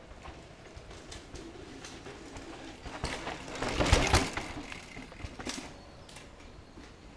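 A mountain bike passing close on a dirt forest trail: a rush of tyre noise with clattering that builds, peaks about four seconds in and fades away.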